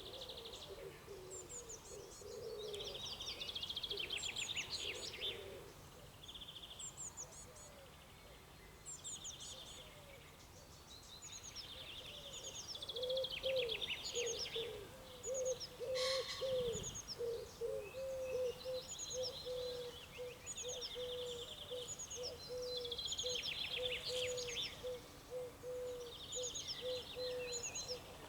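Several wild birds singing in spring: repeated high chirping and trilled song phrases, joined from about the middle by a steady run of short low notes from another bird. A single brief click sounds about halfway through.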